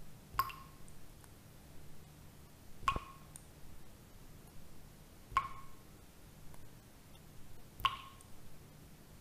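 A short ringing ping, four times at an even spacing of about two and a half seconds, over a faint steady low hum.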